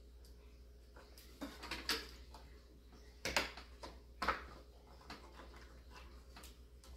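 Sharp clicks and knocks, about four, of parts being handled inside an old desktop PC case, over a steady low hum.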